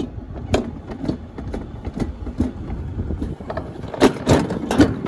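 Summer toboggan sled running fast down a metal trough: a steady rumble of the sled on the track with many sharp knocks and rattles, which come louder and thicker about four seconds in.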